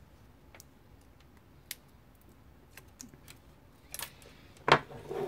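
Hands handling a small ESC board and its wires against a carbon-fibre quadcopter frame on a wooden table. Scattered light clicks, then a few louder knocks and clacks near the end, one sharp knock the loudest.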